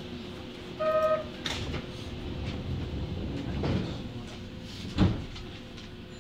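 Inside a Kobe Municipal Subway Series 1000 car standing at the platform: a short electronic chime about a second in, then the sliding doors closing, with a sharp thud about five seconds in. The car's equipment hums steadily underneath.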